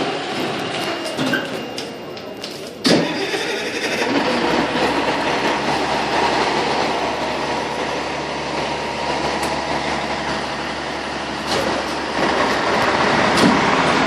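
Fire truck diesel engine starting with a sudden burst about three seconds in, then running steadily. The running noise grows louder again near the end.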